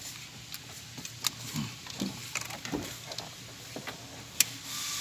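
Hand work on an engine-bay fuel hose fitting: scattered light clicks and taps of parts and tools being handled, with a few brief squeaks and one sharp click about four and a half seconds in.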